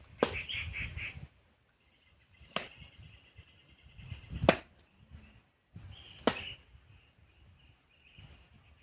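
Four sharp cracks or knocks, spaced about two seconds apart, with faint high chirping between them.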